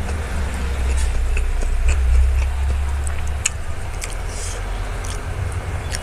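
Eating sounds close to the microphone: small wet clicks and smacks of chewing, with a low steady rumble underneath that is loudest near the middle.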